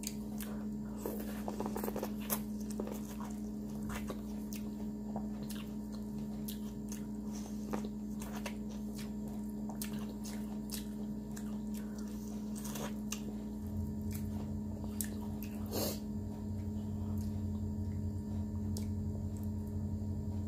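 Close-miked eating: wet, squishy chewing and biting of sauce-coated seafood boil, with scattered smacks and clicks. A steady low electrical hum runs underneath and gets louder about two-thirds of the way in.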